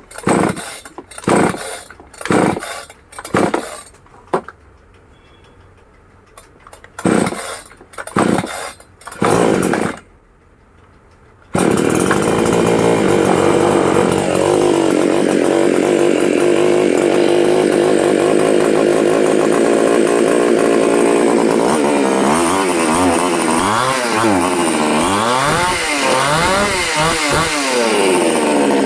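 Powertex petrol chainsaw being pull-started: a run of short, loud bursts as the starter cord is pulled, then the engine catches and runs steadily. Near the end it is revved up and down several times.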